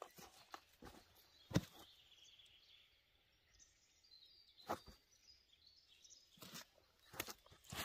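A few scattered faint knocks and clicks, the loudest about a second and a half in, over a quiet outdoor background.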